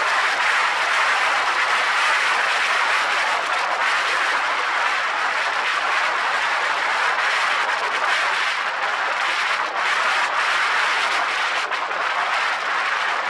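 Severe wind noise on an action camera's microphone: a loud, steady rushing hiss from wind buffeting the camera as it moves at road speed.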